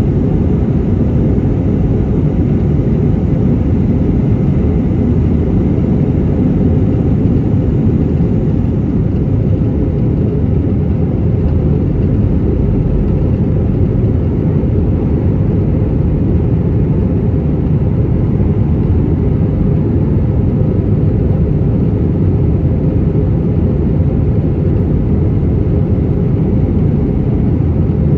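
Steady low rumble of an Airbus A321-200's IAE V2500 engines and the airflow, heard from inside the cabin.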